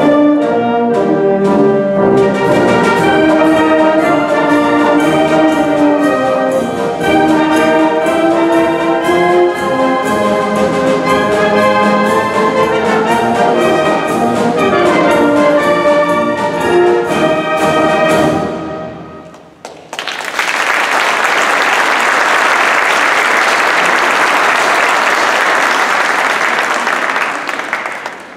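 Military wind band playing the closing bars of a march, brass and reeds over regular drum beats, ending on a final chord that dies away about two-thirds through. The audience then applauds, tapering off near the end.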